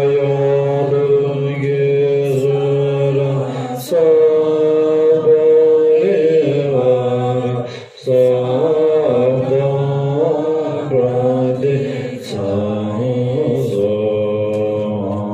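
A group of women chanting Tibetan Buddhist prayers together, long drawn-out notes with brief pauses for breath about 4 and 8 seconds in.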